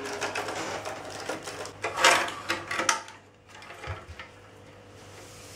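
Old plastic electrical wall box being wrenched out of its recess in the wall, crackling and scraping with rapid clicks for about three seconds, loudest around two seconds in, then a couple of soft knocks.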